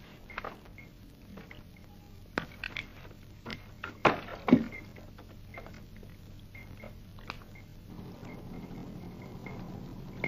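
Quiet soundtrack ambience: scattered soft knocks and clicks, two louder ones close together about four seconds in, over faint short high chirps that repeat at irregular intervals. A low hum rises near the end.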